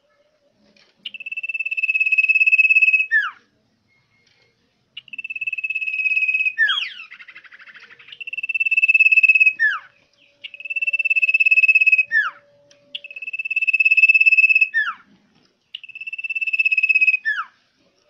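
Common iora (cipoh) singing loudly and persistently: six long, steady, high whistles, each swelling louder over a second or two and ending in a quick downward slur, with short pauses between them. A brief raspy chatter comes after the second whistle.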